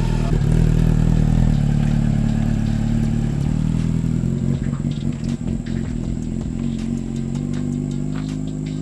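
Motorcycle engine running steadily at a low, even speed, with faint ticks and rattles over it from about halfway through.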